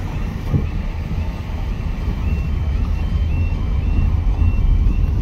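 Level crossing warning alarm sounding, a high two-note tone alternating about every half second, warning that a train is approaching. It comes through into the car's cabin over the low rumble of the idling engine.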